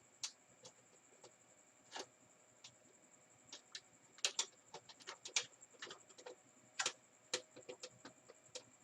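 Irregular small clicks and taps of a screwdriver and a small screw being fitted to hold a board in place inside a stereo's chassis, with a faint steady high whine behind.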